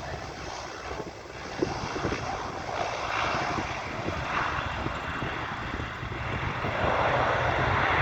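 Twin turboprop engines and propellers of a C-147A Dash 8 aircraft during its landing, a steady engine and propeller noise that grows louder, with a jump near the end.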